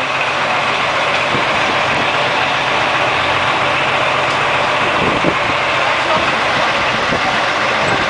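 Coach bus diesel engine idling steadily amid continuous city traffic noise.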